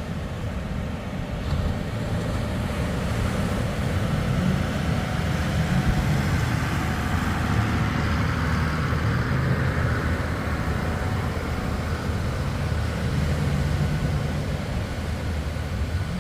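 An engine running steadily at low revs, a low hum that holds through the whole stretch.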